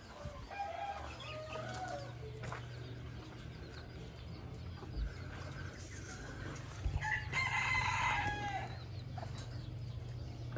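A rooster crowing: one long call about seven seconds in, with shorter calls in the first two seconds. A steady low hum runs underneath.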